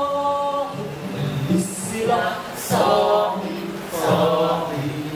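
A man singing through a microphone, holding long notes in several phrases, accompanied by his own acoustic guitar.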